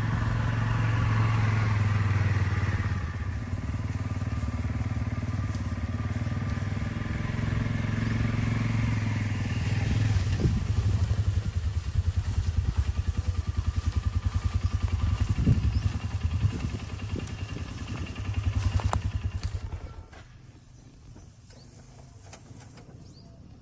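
A motor vehicle's engine running steadily, with a few sharp knocks around the middle. It drops away abruptly about twenty seconds in, leaving a faint background.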